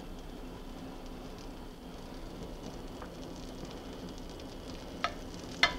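Butter gently sizzling and foaming as it melts in a hot nonstick skillet, with two light knocks near the end.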